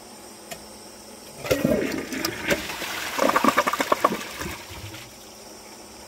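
Kohler Embrook toilet flushing: a faint click, then about a second and a half in water rushes into the bowl and drains with irregular gurgling, loudest midway, dying away about five seconds in.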